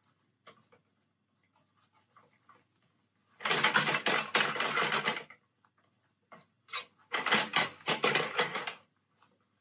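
Long wooden cooking chopsticks scraping and clattering rapidly against a frying pan while scrambling eggs, in two bursts of about two seconds each, with a few faint taps between.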